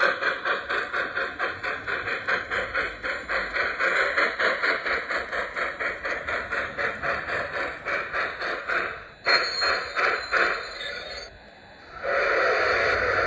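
A G-scale MTH model steam locomotive's onboard sound system chuffing steadily, about four to five chuffs a second, as the locomotive runs under load with a freight train; the chuffing fades out about ten seconds in. About a second before the end, a steady hiss starts.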